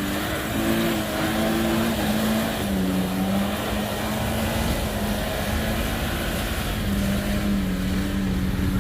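Small 4x4's engine running under load off-road, its note shifting up and down over a heavy low rumble.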